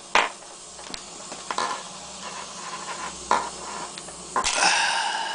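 A few sharp metallic clicks as a pick and a screwdriver work a stiff brass Schlage padlock's pin tumblers. About four and a half seconds in, a louder sustained hissing buzz starts.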